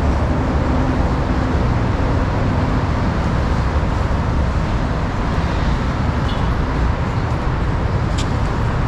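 Steady road traffic noise, a continuous even hiss and low hum of passing vehicles, with one brief tick about eight seconds in.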